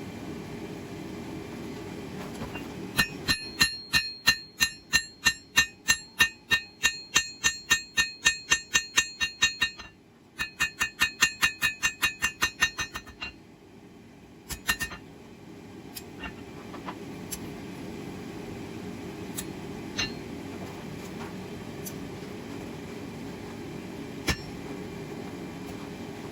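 Hand hammer striking hot 1084 steel on an anvil, a rapid run of ringing blows at about three a second, broken briefly, then a few lighter single taps. A steady low rumble runs underneath.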